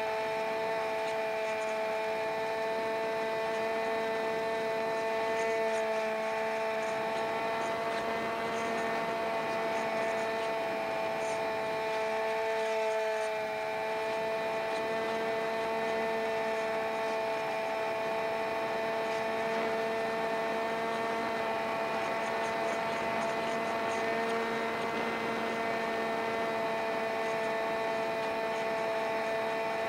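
Electric motor and propeller of a Multiplex Easystar RC plane running at steady throttle in flight: a constant whine made of several steady tones, picked up by a recorder strapped under the wing. It dips slightly about 13 seconds in.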